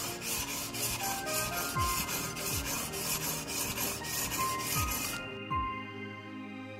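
Japanese kitchen knife blade being stroked back and forth on a wet whetstone with slurry, a gritty scrape repeated in quick, even strokes that stop about five seconds in. The strokes straighten the burr on the edge.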